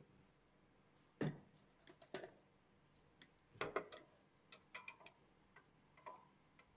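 Screwdriver working a case screw on the side of a Cisco 2960 switch's sheet-steel chassis: irregular light metal clicks and knocks, the strongest about a second in and a quick cluster near the middle, as the screw is backed out.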